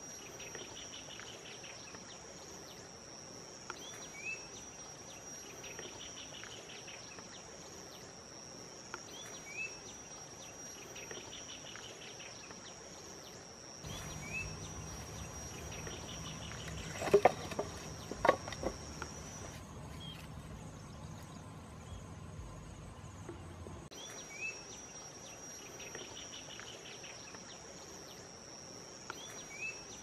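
Steady high insect trill with a short rising bird chirp about every five seconds. A few sharp clicks and knocks, the loudest sounds, come a little past the middle.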